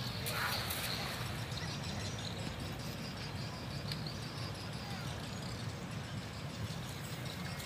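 Thrown cast net landing on pond water with a soft splash about half a second in, over a steady low background noise.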